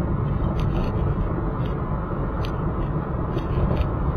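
A vehicle driving along a road: steady engine and road noise, with a few light clicks or rattles now and then.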